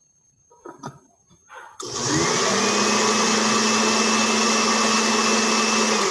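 Countertop blender switched on about two seconds in, its motor whining up to speed and then running steadily as it purées chopped vegetables and a raw egg. It is preceded by a few light knocks of handling.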